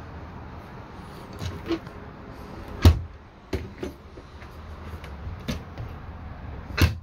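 Wooden overhead kitchen cabinet doors being opened and shut, a series of sharp knocks and clicks, the loudest about three seconds in and again near the end, over a low steady rumble.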